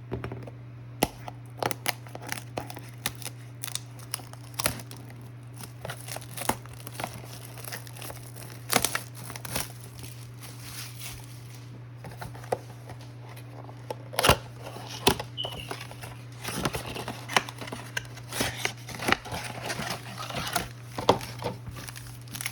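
Plastic wrapping and packaging of a trading-card box crinkling and tearing as it is opened by hand, in irregular sharp crackles. A steady low hum runs underneath.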